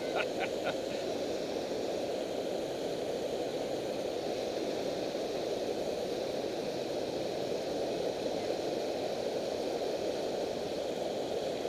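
Steady rush of river water pouring over a low-head dam: a dense, even roar with no change.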